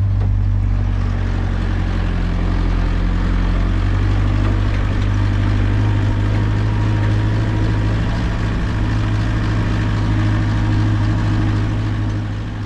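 Land Rover Defender's engine running steadily as it drives along a sand track: a constant low drone with a steady rush of noise over it.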